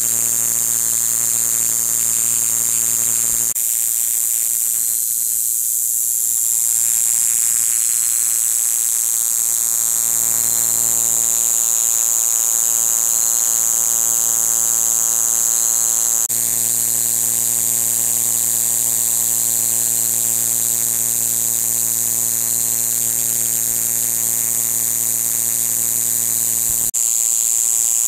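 Kayakiri katydid (Pseudorhynchus japonicus) singing: a loud, continuous high-pitched buzz that does not let up, over a faint low steady hum.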